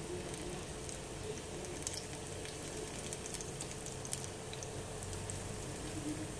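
Gram-flour-battered spinach leaves deep-frying in hot oil in a pan: a steady sizzle with scattered small crackles and pops.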